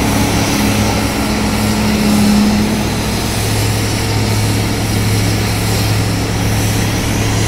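Diesel engine of a large hydraulic mining excavator running steadily under load as it digs, a deep droning hum with no sharp knocks. The drone's tone shifts a little about three seconds in.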